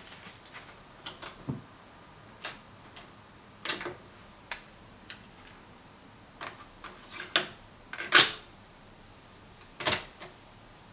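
Sony CFS-W600 boombox's cassette deck being handled, giving a series of sharp plastic clicks and clunks as a tape is swapped and the deck door shut. A firm clunk near the end as a piano-key transport button is pressed down.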